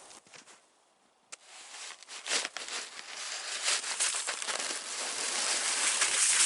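Snow being dug off a snow-loaded shelter: a continuous run of crunching and scraping that starts about a second and a half in after a brief quiet and grows louder toward the end.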